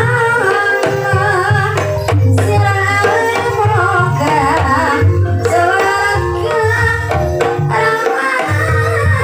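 Ebeg accompaniment music: kendang hand drums beating steadily under gamelan tones, with a wavering sung or played melody on top.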